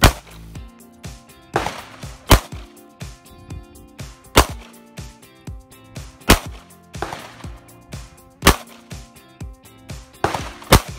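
Semi-automatic pistol being fired, single shots about every two seconds, six in all.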